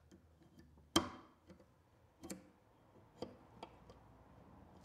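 A few separate sharp clicks and taps, the loudest about a second in, as a Fluke voltage tester's probe tips are poked and wiggled into the slots of a 30 amp twist-lock receptacle to make contact.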